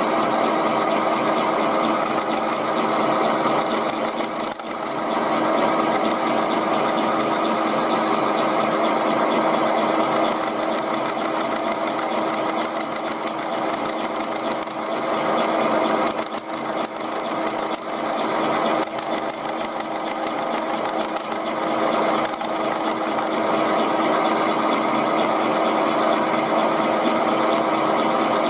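Milling machine running while its fluted cutter mills through the thin tinplate rim of a fish can under hand feed: a steady machine hum with a continuous grinding rasp of metal being cut. The thin, loosely clamped can is starting to vibrate under the cutter, as the operator feels it.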